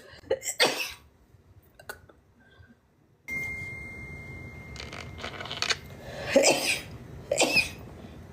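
A woman sneezing over and over in a sneezing fit. One sneeze comes near the start, then several more come in quick succession in the second half.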